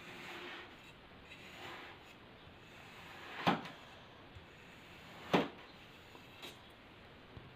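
Kinetic sand being cut: soft, grainy crunching as the blade passes through the sand, then two sharp knocks about two seconds apart, and a faint tick after them.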